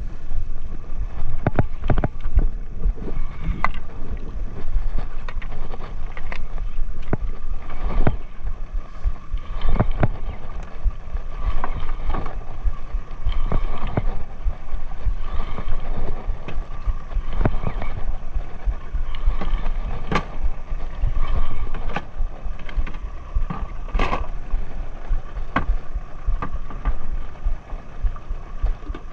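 Sea water slapping against the hull of a small wooden fishing boat, with irregular knocks, and a steady low rumble underneath.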